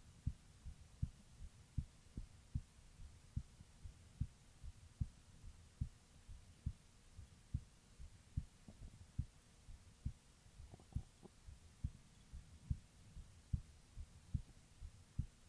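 A woman's heartbeat heard through a stethoscope: a steady, regular rhythm of short low thumps, the lub-dub of the heart, over a faint low hum.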